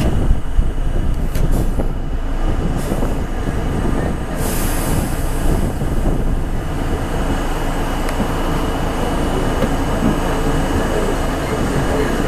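New York City subway train pulling slowly out of an elevated station, its motors and steel wheels running steadily on the rails, heard from inside the car at its end window. A few short hisses come in the first five seconds.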